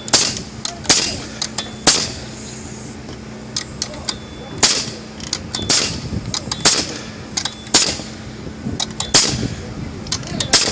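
Harbor Freight pneumatic stick framing nailer firing nails into lumber: about eight sharp shots, roughly a second apart, with smaller knocks between. The gun is firing in about 10 °F cold.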